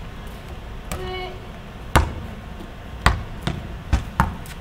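Basketballs bouncing on a concrete court: about five sharp thuds, starting about two seconds in and coming closer together near the end. A short voice call about a second in.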